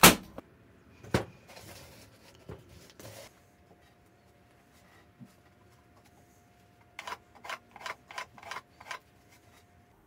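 Pallet-wood boards being handled on a workbench: a sharp wooden knock at the start and another about a second later, some scraping, then six quick scrapes in a row near the end.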